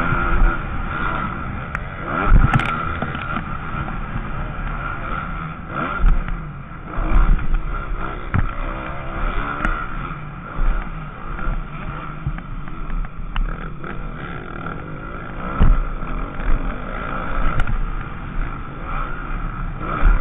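Onboard sound of a motocross bike's engine racing hard around a dirt track, revving up and down, with heavy wind and low rumble on the bike-mounted microphone. Several sharp jolts stand out over bumps and jumps, the clearest about two seconds in, about six seconds in, and near three-quarters of the way through.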